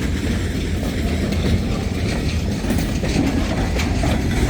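Freight train rolling past, its railcar wheels rumbling and clacking over the rail joints.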